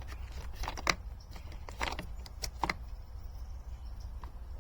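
A short piece of copper tubing being handled and fitted into a plastic part, giving a few sharp light clicks and taps, the loudest about a second in, over a low steady hum.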